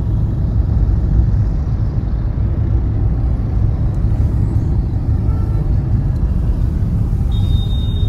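Steady low rumble of a car moving in slow city traffic among motorbikes, heard from inside the car. A short high-pitched beep sounds near the end.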